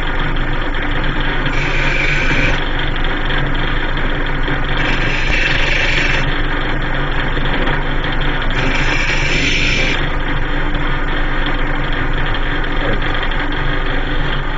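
Electric grinder running steadily while a steel bolt's hex head is pressed against the wheel in spells, grinding it round. The grinding gets louder and hissier three times, for a second or so each.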